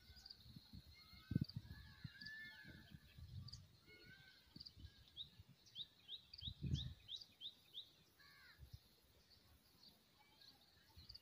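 Faint birdsong: several small birds chirping, with a quick run of short rising notes, about three a second, from about five to eight seconds in. A few low thumps sound under it, the loudest about a second in and near the middle.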